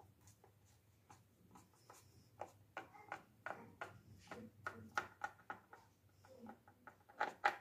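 Knife sawing through a soft white-bread sandwich on a plastic cutting board: a run of faint, irregular scratchy strokes that begins about a second and a half in.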